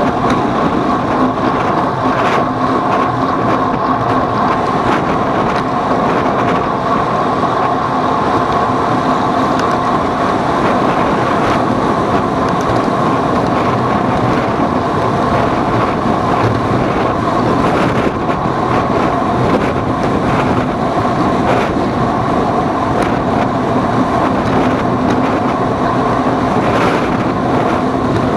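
Steady running noise of a moving vehicle with wind on the microphone: a constant hum that holds one pitch throughout over rushing noise, with a few light ticks.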